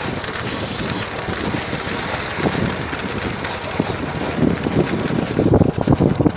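Wind rushing over the microphone of a camera on a moving road vehicle, with road and vehicle noise underneath. A brief high-pitched squeal comes about half a second in, and the buffeting turns louder and choppier near the end.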